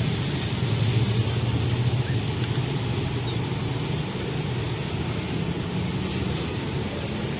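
Bus diesel engine idling close by: a steady low rumble whose pitch shifts slightly now and then.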